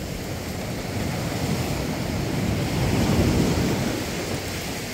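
Sea surf washing up a sandy beach, a steady rush that swells about three seconds in as a wave runs up the sand.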